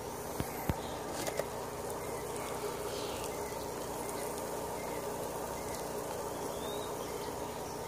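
Steady electric buzz of a hydroponic air pump, with the aerated reservoir water bubbling in a deep water culture tub. A few light knocks come in the first second and a half.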